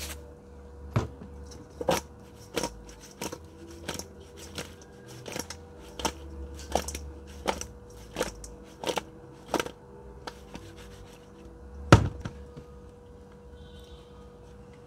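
Seasoning being shaken over sprat fish and the fish tossed in a stainless steel bowl: a run of sharp taps and knocks, one or two a second, that stops after about ten seconds, then a single louder knock about twelve seconds in.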